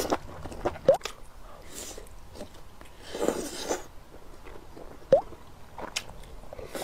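Close-up eating sounds: a man slurping and chewing duck intestines, sliced pork and rice from spicy broth. Sharp wet mouth smacks about a second in and again about five seconds in, and a longer breathy slurp a little after three seconds.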